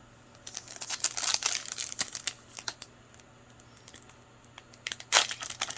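Foil trading-card pack wrapper crinkling as it is handled: a spell of rustling about half a second in, then a louder crinkle near the end.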